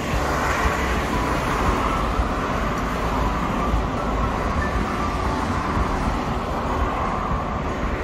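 Steady road traffic: the tyre and engine noise of passing cars swelling and fading.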